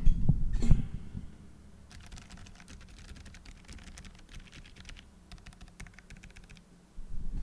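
Typing on a mechanical keyboard fitted with Kailh Deep Sea silent switches and no keycaps: a fast run of soft, muted key clicks, preceded by a couple of knocks at the start.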